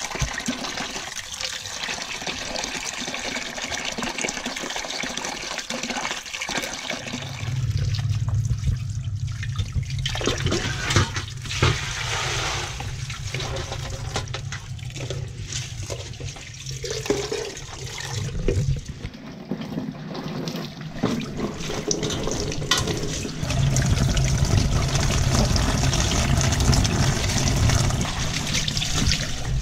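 Water running from a tap into a basin, with splashing and swishing as leaves and glutinous rice are washed by hand. The flow gets louder and fuller twice, about a quarter of the way in and again near the end.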